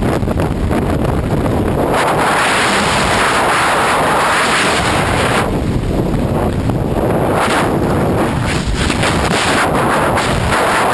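Freefall wind rushing over a body-mounted camera's microphone, loud and buffeting, swelling and easing every few seconds.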